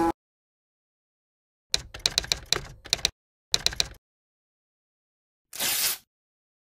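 Typing sound effect: two quick runs of sharp typewriter-like key clicks, the second shorter, followed about five and a half seconds in by a half-second burst of hiss.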